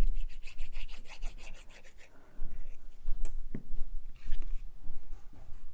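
Hands rubbing and handling cardstock pieces, pressing a paper piece into place: a fast run of scratchy rubbing strokes for about the first two seconds, then scattered rustles and taps with two sharp clicks a little past the middle.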